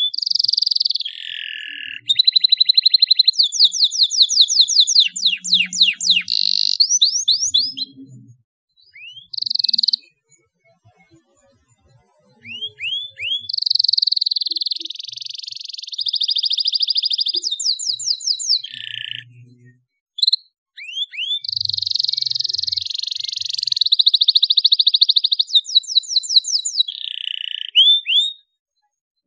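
Domestic canary singing loudly in long phrases of fast trills and buzzy rolls, mixed with quick rising chirps, broken by a pause of a few seconds about ten seconds in and a brief one near twenty.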